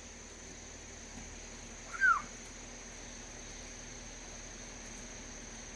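Steady high-pitched chirring of crickets or similar insects, with one short, loud, downward-sliding squeak about two seconds in.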